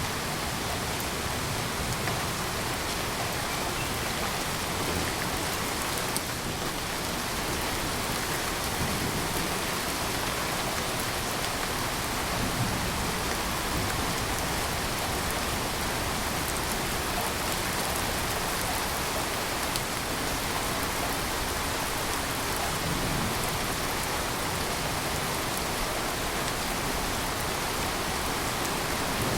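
Steady rain falling, an even hiss that runs without a break.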